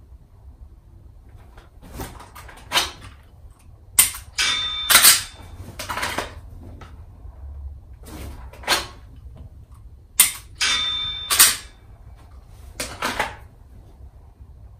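Dry-fire practice with a Walther VP9 pistol. Handling clacks and rustles come from the draw, and two sharp trigger clicks, about 4 and 10 seconds in, are each followed at once by a short electronic beep from the laser-training app. Louder clacks follow each shot as the pistol is worked to reset its trigger.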